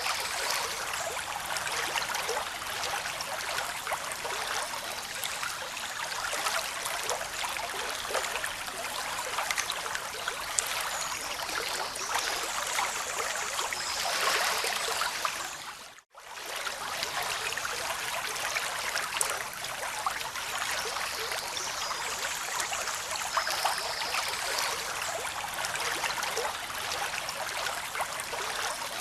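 Steady running water, rushing and trickling like a stream, with small swells in level. About halfway through the sound fades out to a moment of silence and comes straight back.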